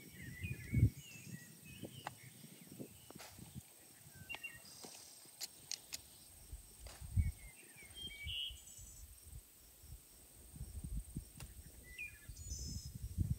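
Outdoor ambience with small birds chirping now and then, scattered sharp clicks, and a few low thumps.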